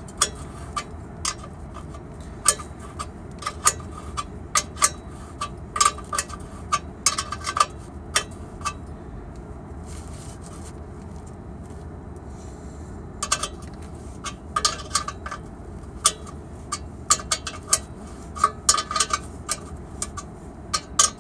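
Socket ratchet clicking in short bursts, with metal clinks, as the muffler's mounting bolts are tightened. There is a quieter stretch of a few seconds around the middle.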